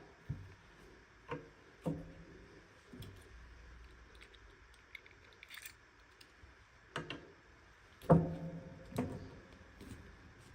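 Scattered light taps, clicks and rustles from hands handling toy packaging and small plastic doll parts, spaced irregularly, with the loudest knock about eight seconds in.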